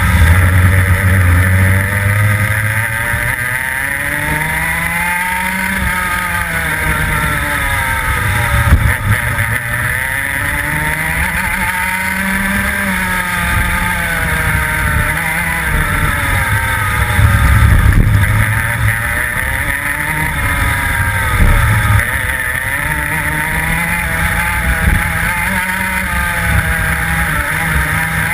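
Rotax 125cc two-stroke kart engine at race pace, heard from on board, its revs climbing on the straights and dropping for the corners over and over.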